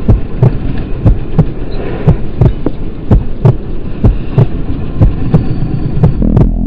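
Heartbeat sound effect: paired lub-dub thumps about once a second, seven beats in all, over a steady low hum.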